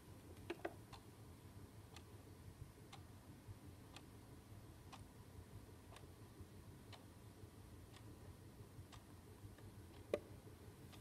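Novelty fishing clock's quartz movement ticking faintly, once a second. A couple of small clicks about half a second in and a louder knock near the end come from the clock being handled.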